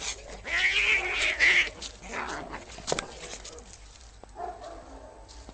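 Angry domestic cat hissing and growling, with the loudest hisses about half a second to a second and a half in and weaker ones after.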